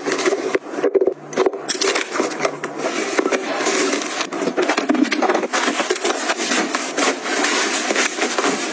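Close-up rustling, crackling and light tapping of small items being handled and packed into a drawstring bag, with many quick clicks over a steady rustle.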